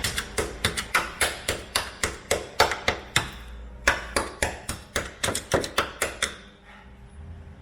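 Quick, sharp taps of a hand tool on the rusted steel bodywork of a Mk1 Mazda MX5, about four a second, knocking at the edges of a rust hole to find how far the rot goes; the tapping stops about six seconds in. The metal gives way: the rust is worse than it looked.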